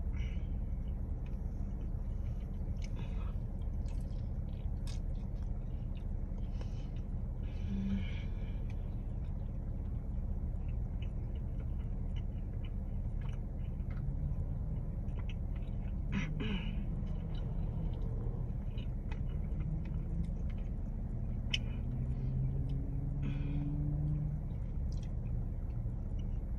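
A person chewing and biting into hot-sauced fried chicken wings, with small mouth clicks here and there, over a steady low rumble inside a car.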